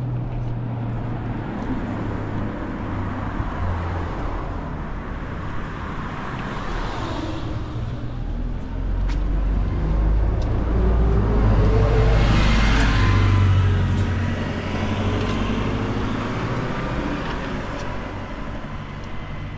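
Street traffic: motor vehicles passing close by, their engine rumble and tyre noise swelling to the loudest pass a little past the middle and then fading away.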